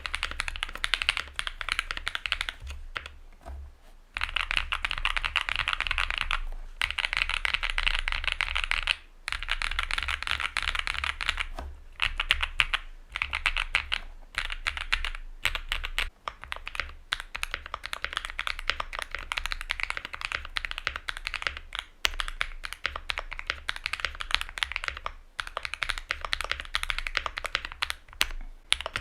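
Fast, continuous typing on a Luminkey65 custom mechanical keyboard with an FR4 plate and lubed, filmed linear switches, giving a bright clacky sound. It pauses briefly about three seconds in and again about nine seconds in.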